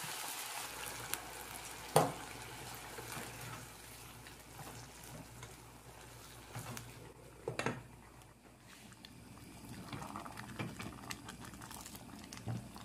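A pan of okra and ground beef simmering and sizzling just after water has been added, fading over the first few seconds, while a spatula stirs it. A sharp knock about two seconds in, and a few smaller clicks later on.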